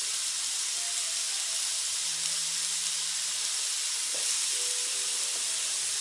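Pieces of pork neck sizzling steadily in a hot cast-iron kazan as they are seared, with fresh cubes dropped in a few at a time.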